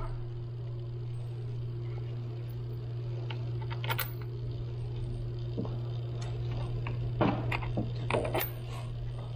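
Small metallic clinks and taps, once about 4 s in and twice near the end, as bolts are fitted by hand to the rear driveshaft flange, over a steady low hum.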